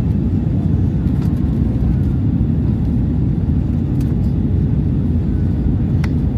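Airbus A320 cabin noise in flight: a steady, loud low rumble of the engines and the air rushing past the fuselage, heard from a window seat.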